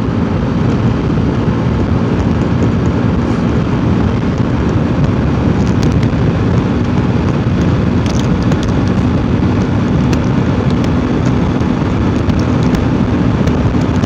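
Wind rushing over the microphone of a Yamaha motorcycle cruising at highway speed, with the engine's steady hum underneath.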